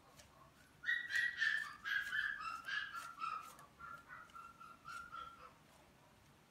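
A dog's high-pitched whimpering: a quick run of short whines stepping down in pitch. It starts about a second in and fades out about five and a half seconds in.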